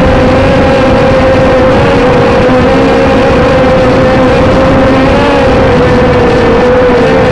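HT803C micro drone's small motors and propellers whining loudly and steadily, right next to the onboard camcorder's microphone. The pitch wavers slightly a few times.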